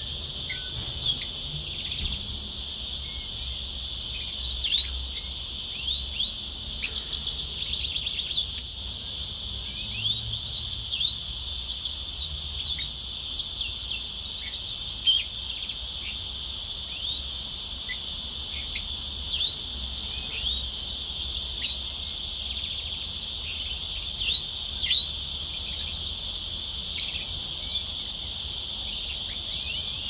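Caged green singers (yellow-fronted canaries) singing in short high chirps and quick rising and falling whistled notes, scattered all through, over a steady high hiss.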